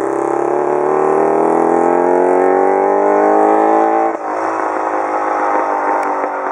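1929 Scott Power Plus motorcycle's two-stroke twin engine accelerating away, its pitch climbing steadily for about four seconds. Then the pitch drops suddenly and the engine runs on lower and rougher.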